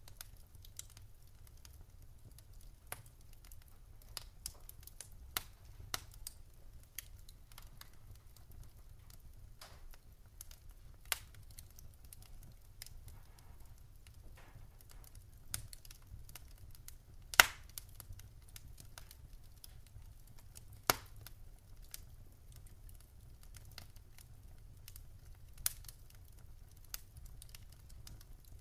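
Wood campfire crackling: sparse, irregular snaps and pops over a low steady rumble, with one sharp louder pop a little past the middle.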